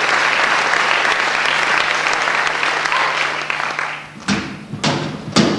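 Theatre audience applauding, the clapping dying away about four seconds in; then a few sharp thuds, about half a second apart.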